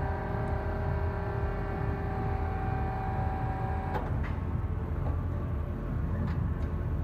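Goodway GS-280 LMY CNC lathe running: a steady motor whine of several tones over a low machine hum, cutting off with a sharp clunk about four seconds in. A few lighter clicks follow as the tool turret indexes near the end.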